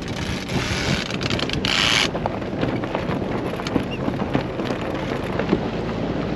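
Wind buffeting the microphone on a sailboat under way, a louder hiss for the first two seconds and then steadier, with scattered small clicks and knocks.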